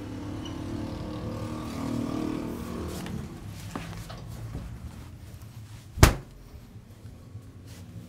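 A low, engine-like hum that swells about two seconds in and fades out by about three seconds. Then a single sharp, very loud smack about six seconds in.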